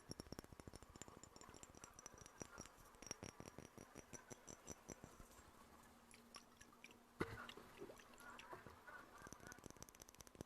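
Faint, close-miked wet mouth clicks of ASMR mouth sounds, coming thick and fast at first and then thinning out, with a single louder handling noise about seven seconds in.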